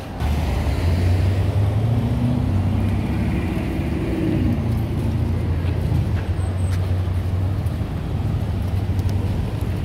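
A motor vehicle's engine running steadily, a low hum with some faint street noise above it.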